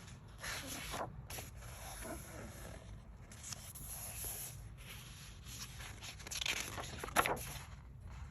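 Paper pages of a soft-cover book being handled and turned: several rustling, rubbing sweeps, with a sharp crinkle of paper about seven seconds in.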